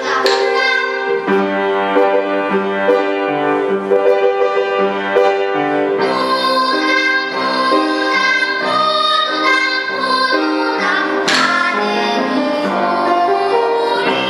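Girls' children's choir singing a Korean children's song over a backing track with piano and strings. A few sharp taps mark the beat in the first five seconds, and a strong accented hit comes about eleven seconds in.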